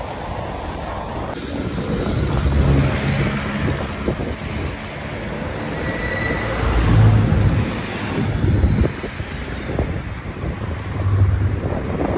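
Street traffic: cars, trucks and motorbikes passing close by, their engine rumble swelling about three times over a steady road noise.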